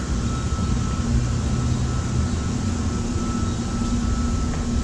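Steady drone of building mechanical equipment: a low rumbling hum with a faint, thin high whine held at one pitch.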